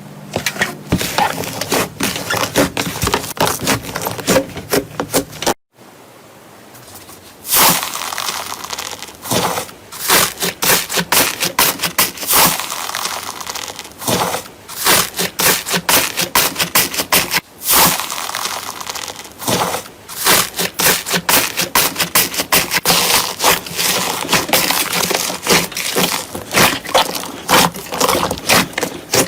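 Slime being squeezed and pressed by hand, giving a dense run of crackling and popping clicks. The sound breaks off briefly about six seconds in and again about eighteen seconds in, where one clip gives way to the next.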